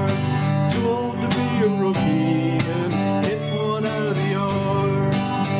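Country-style band music with a strummed acoustic guitar over a steady beat.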